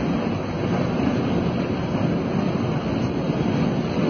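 Steady low rushing noise of a large fire burning, with a fire whirl spinning up out of it, and wind buffeting the microphone.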